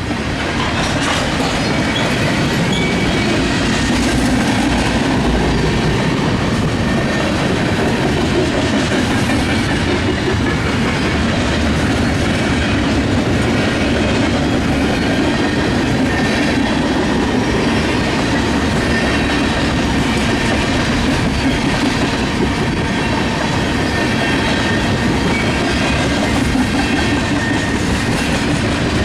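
Canadian National manifest freight train's cars rolling past, wheels clicking steadily over the rail joints.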